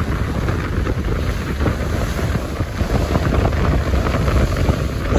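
Strong wind buffeting the microphone aboard a car ferry at sea, over the low steady rumble of the ship.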